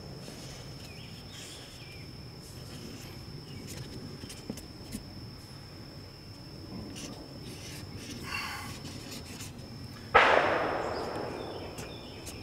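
A single gunshot from another shooter on the range about ten seconds in: a sharp crack with a long echoing decay. Before it, quiet outdoor ambience with a steady thin high whine and faint scratching of a marker on a paper target.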